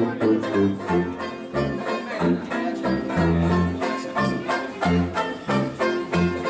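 A street band playing a lively tune, with a sousaphone playing short, separate bass notes under banjo strumming and brass.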